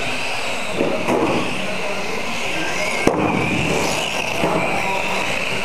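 Electric mini-class RC cars racing on a carpet track: motor whine rising and falling in pitch as the cars accelerate and slow, with some clatter about a second in and a sharp knock about three seconds in.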